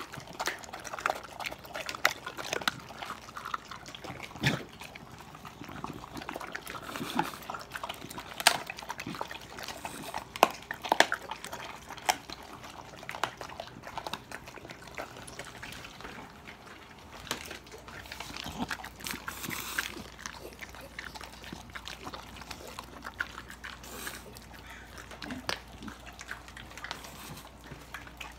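Several dogs eating raw chicken from stainless steel bowls: wet chewing and licking broken by sharp, irregular crunches and clicks.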